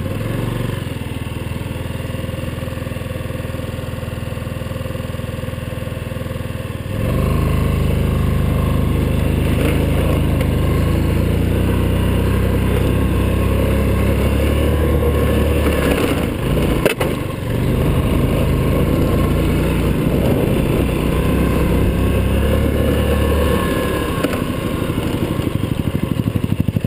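Yamaha Riva scooter engine running under load while riding a dirt trail. The throttle opens about a quarter of the way in and is held, the sound drops out briefly past the halfway point, and near the end the engine eases off toward idle with its separate firing pulses heard.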